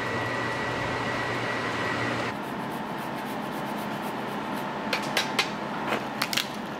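A steady hum with a thin high tone in it, which cuts off about two seconds in. From about five seconds in, a handheld grater scrapes a wedge of hard cheese in a run of quick, sharp strokes.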